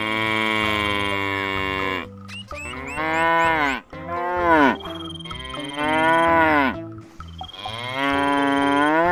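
Water buffalo lowing: about five long moos in a row, several dropping in pitch at the end.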